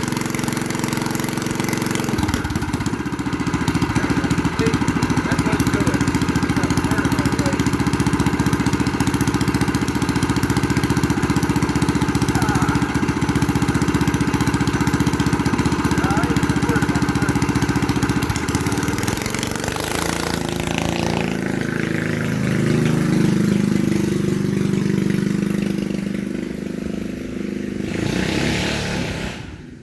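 Predator 212 single-cylinder engine on a straight pipe, running steadily under throttle as the go-kart is driven. From about two-thirds of the way through, the revs drop and then rise and fall, and the sound cuts off just before the end.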